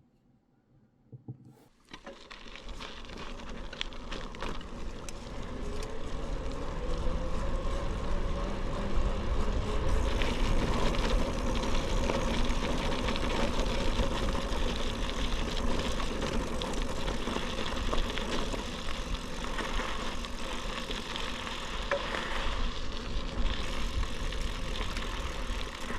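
Riding noise from a bicycle picked up by a GoPro camera whose microphones are covered with fur windscreens: tyres rolling and the bike rattling, with muffled wind. It starts from near silence after a couple of small knocks, builds over the first few seconds as the bike gathers speed, then runs on steadily.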